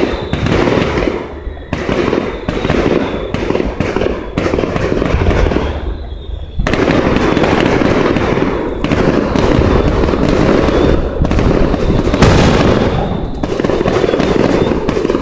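Aerial fireworks shells bursting one after another, with dense crackling and booms that echo. There is a short lull about six seconds in, then the bursts come thick and fast again, with the loudest bang a little after twelve seconds.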